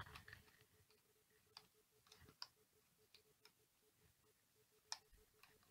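Near silence with a few faint, scattered clicks of a hobby knife working at the covering film of an RC airplane's fuselage while cutting a slot.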